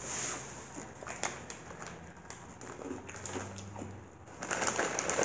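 A plastic chip bag of Flamin' Hot Cheetos crinkling as it is handled close to the microphone, then faint scattered rustles and clicks, growing louder near the end.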